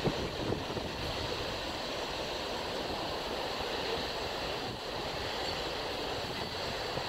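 Steady rushing noise of wind and water, even throughout, with no separate events.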